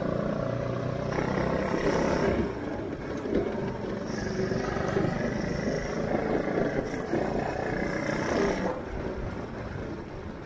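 Shifter go-kart's small engine running as the kart drives along, with road noise. It becomes somewhat quieter for the last two seconds or so.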